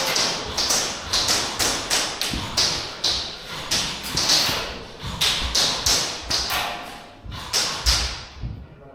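Airsoft guns firing a quick string of single shots, about two or three a second, with a couple of heavier thuds near the end.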